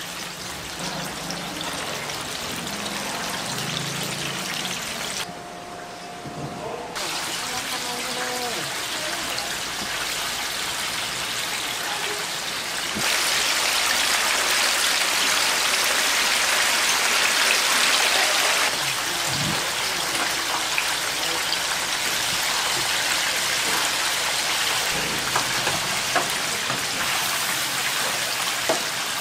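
Battered chicken frying in a vat of hot oil: a steady bubbling, crackling hiss that grows louder for a few seconds midway.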